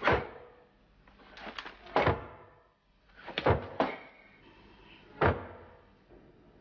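A series of heavy knocks, about one every second or two, each ringing briefly, with quiet in between.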